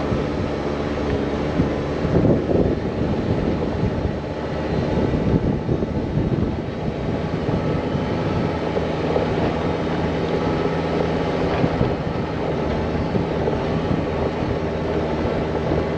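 Motor vehicle engine running steadily at an even speed, with a constant low hum and a background of noise.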